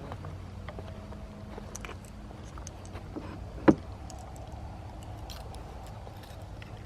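A single sharp knock about three and a half seconds in, over a steady low hum.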